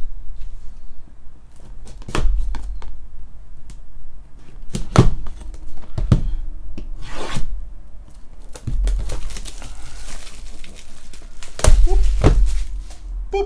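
A sealed cardboard trading-card box being cut and opened by hand: a folding knife slitting the wrap, and plastic and foil wrapping crinkling and tearing. The box and its pack knock against the table in several sharp thumps.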